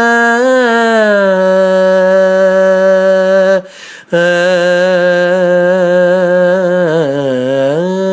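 A man singing a Tamil song unaccompanied, drawing out long held notes with slow, wavering ornaments. He breaks off briefly for breath about three and a half seconds in, then carries on, sliding down to a low note near the end before rising again.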